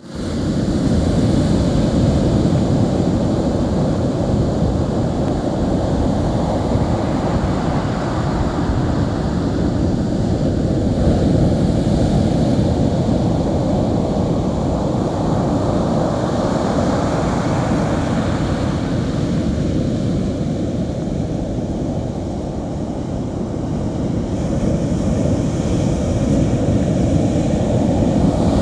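Ocean surf breaking and washing up a sandy beach, with wind buffeting the microphone. The noise eases a little past the middle and builds again near the end.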